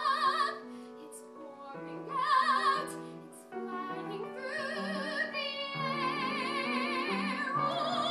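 A woman singing in an operatic style with wide vibrato, accompanied by an upright piano. She sings short phrases, then holds one long note near the end.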